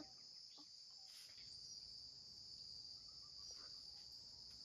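Faint, steady, high-pitched chorus of insects, with nothing else standing out.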